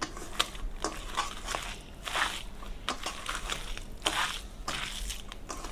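A hand squeezing and mixing cooked rice in a stainless steel bowl: irregular soft squishing strokes, with occasional sharp clicks.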